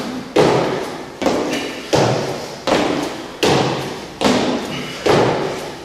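Repeated jump landings on a rubber gym floor as an athlete hops over mini hurdles: a steady series of thuds, seven of them about 0.8 s apart, each ringing on in the hall.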